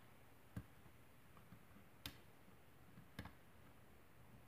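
Faint, sparse clicks from a hook pick and tension wrench working the pins of a lock cylinder during picking: four sharp clicks at irregular intervals, a close pair of them about three seconds in.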